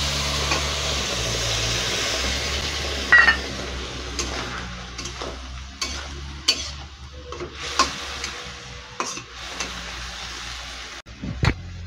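Water poured into a hot kadai sizzles, the hiss fading over the first few seconds; then a metal spatula stirs and scrapes the taro stems against the pan with scattered clicks. A sharp knock of metal near the end.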